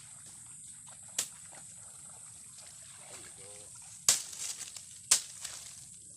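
A few sudden splashes and sloshes of flood water from wading, the two loudest about a second apart in the second half, over a steady faint high hiss.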